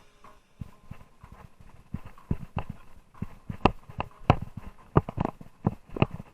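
Irregular sharp knocks and clatters, a few a second and uneven in strength, like a bicycle rattling and jolting over rough, rocky ground.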